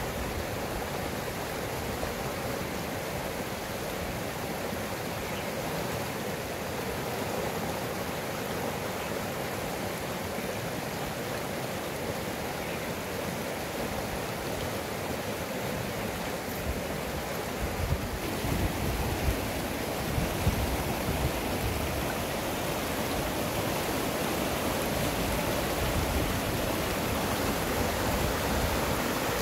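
Small mountain river rushing over stones: a steady, even rush of flowing water, with a few low bumps about two-thirds of the way through.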